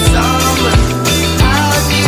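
Background music with a steady beat, a drum hit about every two-thirds of a second over held bass notes.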